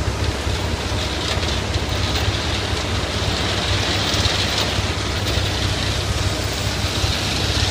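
An engine running steadily, a low, fast-pulsing rumble with an even hiss over it.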